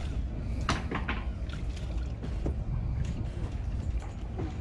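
Steady low rumble of wind on the microphone, with a few short knocks and clatters about a second in.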